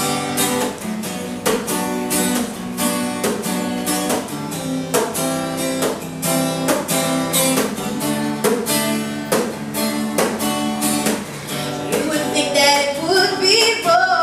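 Acoustic guitar strumming chords in an even rhythm during an instrumental break in a song, with a higher melodic line coming in near the end.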